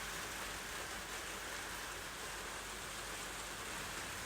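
Pot of soup simmering on the stove, a steady low hiss.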